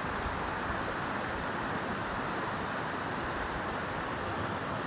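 Steady rushing of a small river flowing over stones, an even wash of water noise with no breaks.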